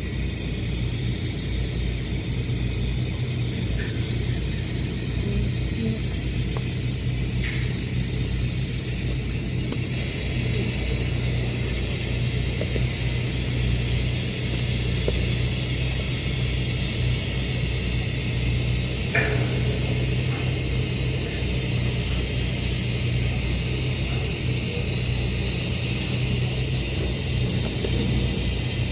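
Electric arc welding a horizontal joint in carbon steel: the arc strikes at the start and burns as a steady, loud crackling hiss over the welding machine's low electrical hum, with a few faint sharp ticks along the way.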